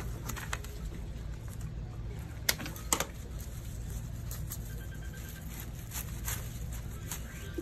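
Greenery stems being handled and set into a glass vase: a few sharp clicks, clearest about two and a half and three seconds in, over a steady low hum.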